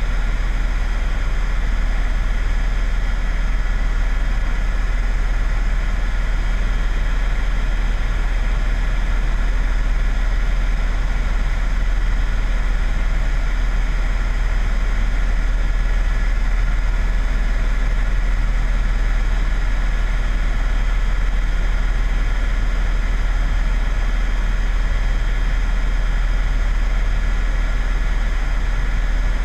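Steady vehicle noise: a deep engine rumble with a few faint steady whining tones above it.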